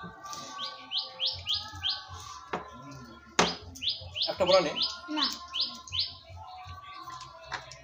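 A small bird singing two runs of short, high repeated notes, about three a second, with faint music in the background. A few sharp knocks fall near the middle.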